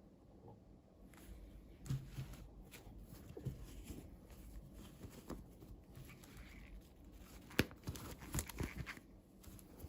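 Hands handling small toys and their packaging: soft rustling with scattered clicks and taps, the sharpest about three quarters of the way in.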